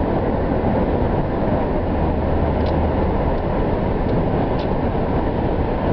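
Steady road and engine noise heard from inside a moving car's cabin, a low rumble with a faint hum and a few light ticks.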